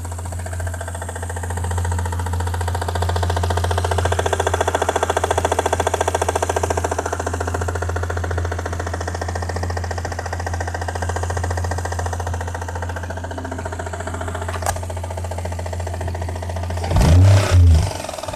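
Toyota 1JZ-GTE VVT-i turbocharged straight-six idling warm, with a rapid, even knock ticking in time with the engine: the knock the owner is showing. A few loud thumps come near the end.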